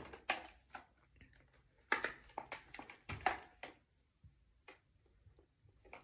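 Light taps and clicks from hands handling makeup, a few every second, thickest about two to four seconds in and fewer after.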